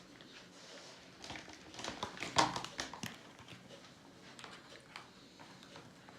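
A quick flurry of sharp taps and knocks lasting about two seconds, loudest near the middle, then a faint room background.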